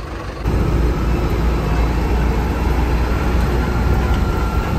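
Local bus engine idling, then from about half a second in the louder, steady rumble and road noise of the bus driving, heard from inside its cabin.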